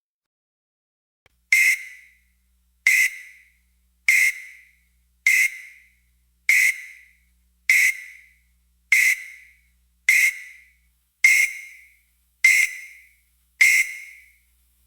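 Synthesized alert-tone sound effect: a short, bright warning ping, struck eleven times about every 1.2 seconds, each dying away quickly.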